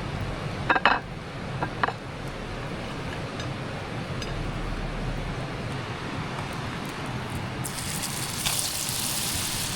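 Bread dough frying over a campfire, with the steady rush of a creek behind it; a few metal clinks about a second in, and a louder hiss sets in near the end.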